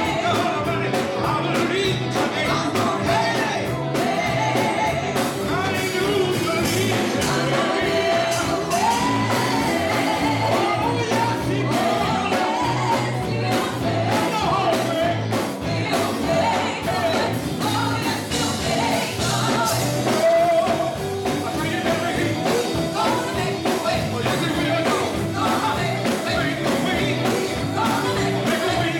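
Live gospel song: a group of singers on microphones, backed by a band with drum kit and electric guitar, with a steady beat throughout.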